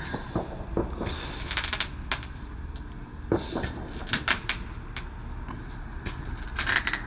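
Distant fireworks and firecrackers popping, scattered single cracks with two quick crackling runs, about a second in and near the end, over a steady low rumble.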